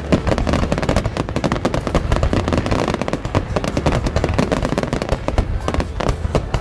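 Fireworks finale: a dense, continuous barrage of bangs and crackling reports, many per second, over a steady low rumble.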